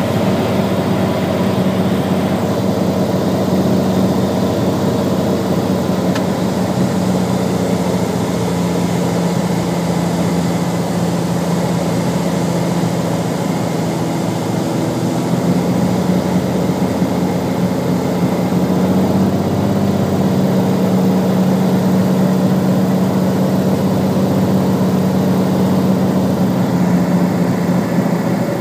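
Light propeller plane's engine droning steadily, heard from inside the cabin during the approach and landing, with a strong low hum that grows a little stronger about two-thirds of the way through.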